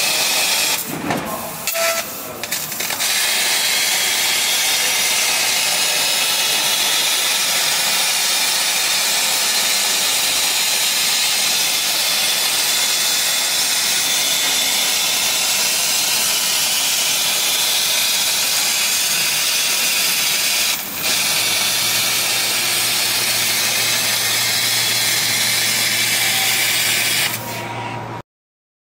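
6 kW fiber laser cutting 10 mm carbon steel plate: a loud, steady hiss of the assist gas and molten metal blowing through the cut, dropping out briefly a couple of times a second or two in and once near 21 s. A low hum joins in for the last several seconds, then the sound cuts off suddenly.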